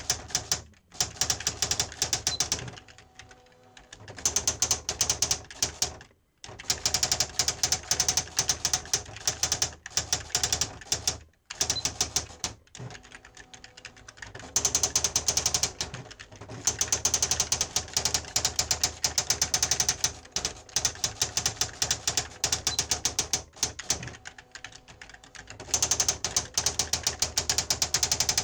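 Sharp PA-3000II daisy-wheel electronic typewriter typing: fast runs of print-hammer strikes, many per second, broken by a few short pauses.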